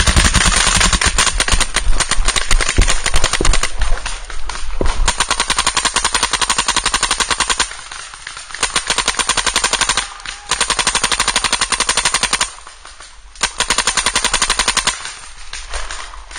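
Paintball markers firing in rapid strings of shots. The fire is dense and continuous for the first half; after that come three separate bursts of evenly spaced shots, each a second or two long, from the close Empire Vanquish electronic marker.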